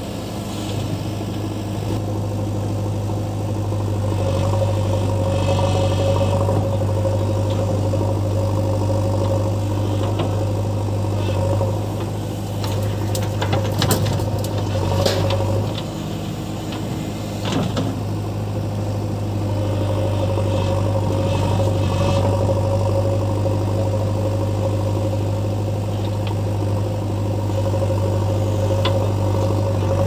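Diesel engine of a JCB 3DX backhoe loader running steadily as it digs soil and loads it into a tractor trolley. There are a few sharp knocks and clatters about halfway through, and the engine note eases briefly soon after.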